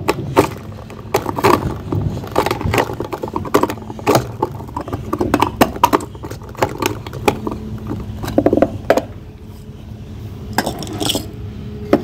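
Hand-cranked plastic nut chopper crushing nuts: an irregular run of clicks, clinks and crunches as the blades turn and break the nuts, with a short lull near the end.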